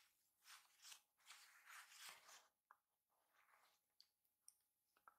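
Very faint rustling of fur and blanket fabric as a hand strokes a kitten, in short soft bursts that die away after about two and a half seconds; then a few tiny clicks as the kitten licks its lips.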